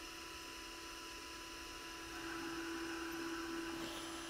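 Steady electrical hum with a faint hiss, growing a little louder about two seconds in.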